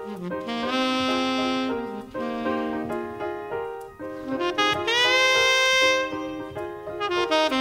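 Background music: a slow jazz tune in which a horn plays long held notes that slide up into pitch, over sustained piano chords.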